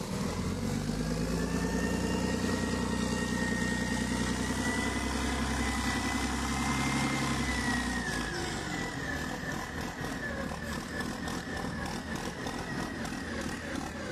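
Large diesel engine of a heavy-lift machine running hard, with a high whine above it. About eight seconds in, the engine eases back and the whine falls away, leaving it running more quietly.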